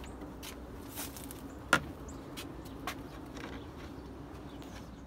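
A steady low hum with a few faint knocks and one sharp click about a second and a half in.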